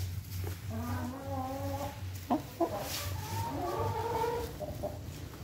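Chickens clucking in two runs of drawn-out calls, with a couple of sharp knocks between them, over a steady low hum.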